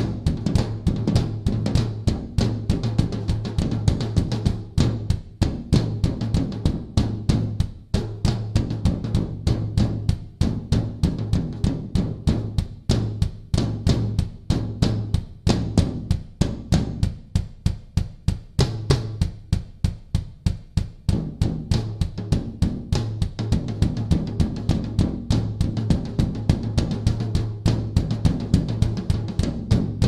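A drum kit played fast, a continuous stream of snare, tom and bass-drum strokes. About two-thirds of the way through, the high-end hits thin out for a few seconds, leaving mostly low drum strokes.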